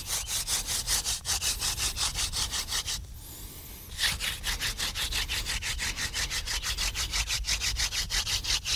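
Wooden hand-drill spindle spun rapidly back and forth between the palms, grinding in the notched hole of a wooden fireboard: a fast rhythmic rubbing, with a break of about a second about three seconds in before it resumes. The friction is heating the board and starting to raise smoke on the way to an ember.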